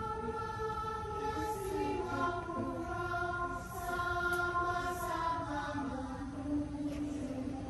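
Choir recording of the national anthem playing from a tablet's speaker, with long held notes sung in harmony.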